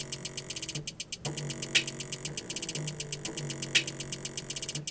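An electronic beat playing through a small bare speaker driver being tested to see whether it works: fast ticking hi-hats, a steady bass line and a clap about every two seconds, with short breaks about a second in and near the end.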